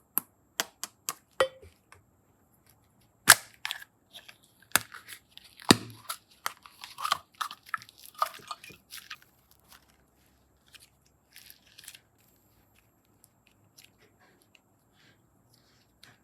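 Clay and slime being handled by hand: a quick run of sharp clicks and taps, a few louder knocks, then a busy crackly stretch of handling before it thins out to scattered small clicks.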